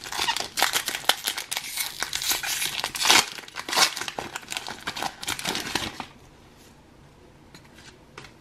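Foil wrapper of a Pokémon booster pack being torn open and crinkled in the hands, a dense crackling that stops about six seconds in.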